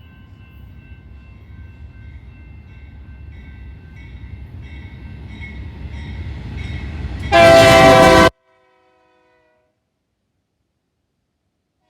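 BNSF locomotive approaching, its rumble growing steadily louder, with its air horn sounding faintly. About seven seconds in, a very loud horn blast lasts about a second, then the sound cuts off suddenly.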